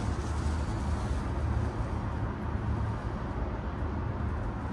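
Steady outdoor city background: a low, even rumble of distant traffic with no distinct events.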